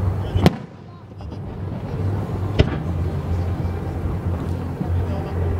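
Two sharp bangs from distant aerial firework shells bursting, about two seconds apart, over a steady low rumble.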